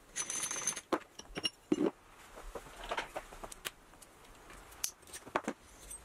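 Steel parts of a spin indexer being taken apart by hand: a short scrape with a high ringing just after the start, then scattered clinks and taps as the index plate and rings are lifted off and set down on the bench.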